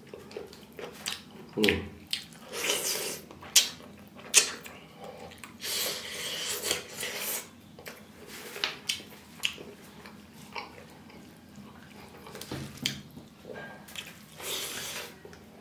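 Close-miked mouth sounds of a person eating rice and curry by hand: wet chewing with many short smacks and clicks.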